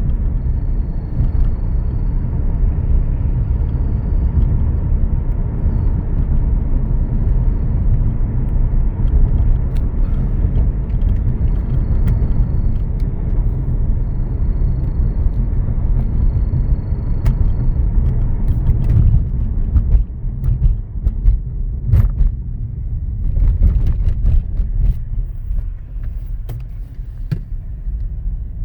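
2013 Mercedes-Benz E350 4Matic with the M276 V6, on the move: a steady low rumble, with a faint high-pitched tone coming and going through the first half. This is the noise when moving that remains after new idler pulleys, a new serpentine belt and a new tensioner pulley. The rumble eases after about twenty seconds, leaving scattered light clicks.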